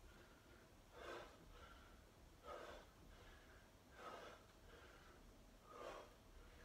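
Faint, rhythmic breathing of a man exercising: a sharp breath out about every one and a half seconds, four times, in time with his repetitions.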